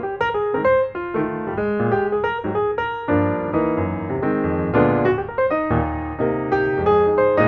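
Background piano music, a quick succession of struck notes.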